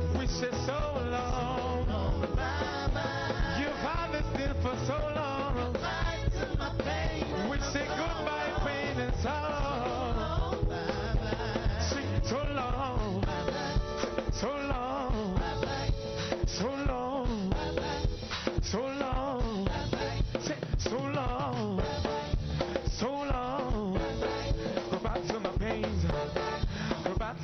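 Live gospel praise music: a band with drum kit keeping a steady upbeat rhythm under a lead singing voice.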